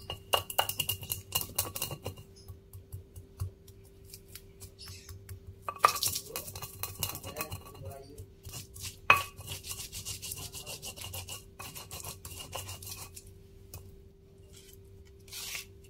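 Stone pestle crushing and grinding shallots, garlic and white peppercorns into a paste in a stone mortar: irregular knocks and gritty scraping, with two sharper knocks about six and nine seconds in.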